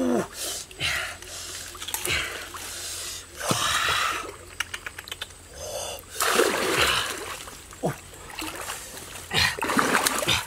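Water splashing in irregular bursts as a man wades through a shallow, muddy river, with a quick run of small clicks about four to five seconds in.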